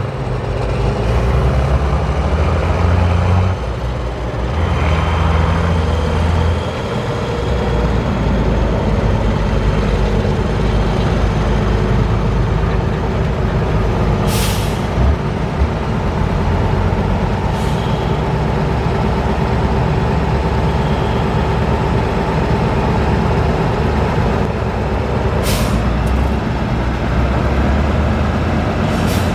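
Tatra six-wheel-drive trial truck's diesel engine running steadily under load as the truck crawls through mud, its pitch shifting in the first few seconds. Short sharp hisses of released air sound about halfway through and twice near the end.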